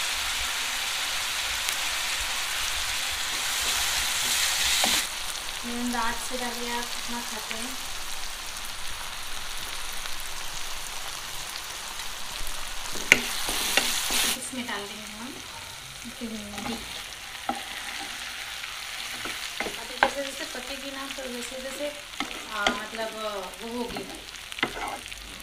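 Onion-tomato masala sizzling and frying in a kadhai while a spatula stirs it, with a few sharp knocks of the spatula against the pan. The sizzle is loudest for the first five seconds and rises again briefly about thirteen seconds in.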